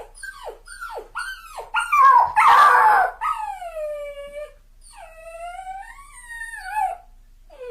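Dog crying: a quick run of short, falling whimpers, then a louder, rougher cry about two seconds in, followed by two long, wavering whines.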